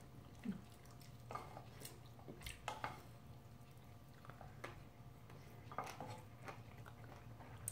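Faint, scattered clicks and taps of chopsticks and a ladle against a metal pan and bowls, with small wet sounds of noodles being lifted and eaten.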